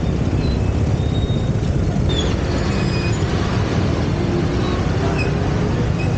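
Steady wind rush and low rumble on the microphone of a moving bicycle, with road and traffic noise. A few short high chirps sound now and then over it.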